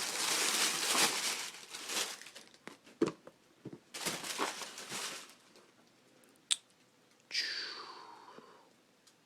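Packing paper crinkling and rustling as new boots are unwrapped from their box, in bursts. A single sharp click comes about six and a half seconds in, then a short falling squeak.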